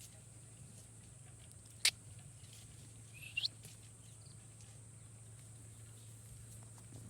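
A parrot giving one short chirp that rises in pitch, about three and a half seconds in. A single sharp click a little before two seconds in is the loudest sound, over a steady low hum.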